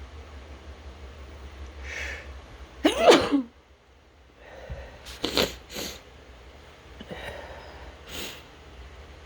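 A person's sneeze about three seconds in, led by a sharp breath in just before it. After it come a few shorter, sharp breathy bursts as the nose tickle lingers.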